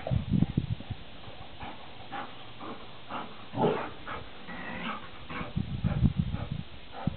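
Greyhounds making rough, pulsing dog sounds in bursts as they play, loudest near the start and again near the end, with a few short higher-pitched cries in between.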